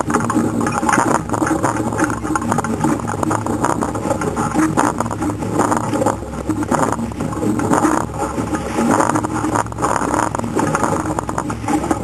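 Wind and rushing water on the microphone of a rowed surf boat at sea, with a steady low hum underneath.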